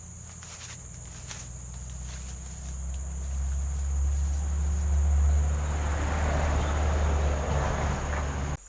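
Insects chirring steadily at a high pitch, under a low rumble that swells from about three seconds in and cuts off abruptly near the end.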